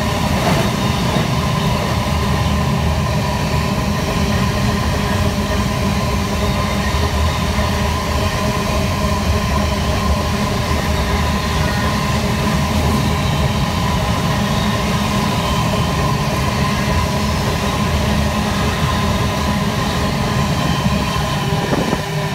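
Long iron-ore freight train's wagons rolling past on the rails: a steady, loud rumble of wheels with faint steady whining tones over it. The sound drops near the end as the last wagons go by.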